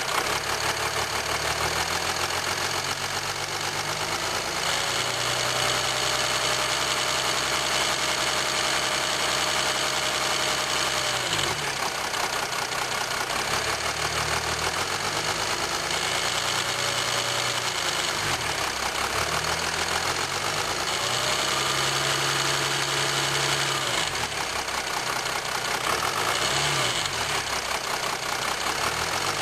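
2007 Jeep Grand Cherokee 3.0 CRD V6 turbodiesel engine running, heard close up from under the hood, with a rattle on the drive side that the owner suspects is the timing chain. Its pitch shifts a little every few seconds.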